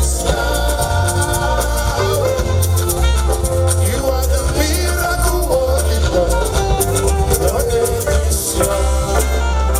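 Upbeat music with a heavy, pulsing bass line, a shaker keeping time and sung vocals.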